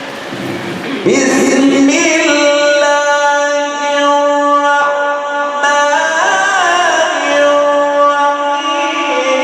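A male reciter chanting the Quran in the melodic mujawwad style, holding long drawn-out notes that bend into ornaments in the middle.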